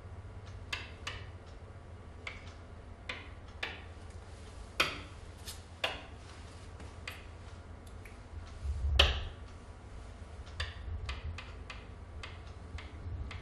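Irregular light taps and clicks of a hand on an interactive whiteboard as slides are paged through, with one louder knock about nine seconds in, over a low steady hum.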